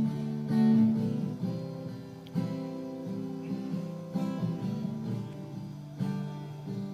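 Acoustic guitar strumming chords, with new chords struck about half a second in, a little before the middle, and near the end.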